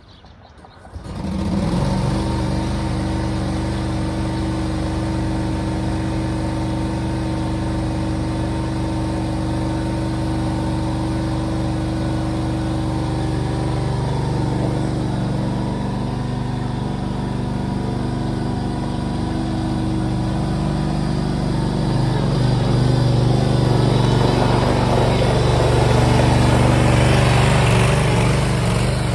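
Small Briggs & Stratton Vanguard engine in a mini skid steer running steadily. It sets in suddenly about a second in and grows louder near the end as the machine is moved.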